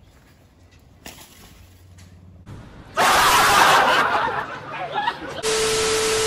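Quiet at first, then loud laughter breaks out about three seconds in. Near the end it gives way to a steady hiss with a single held tone.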